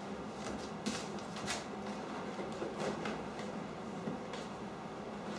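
A few light knocks and rustles from the plastic shell of an Ehang Ghost Drone 2.0 being handled and lifted out of its foam packaging, over a faint steady hum.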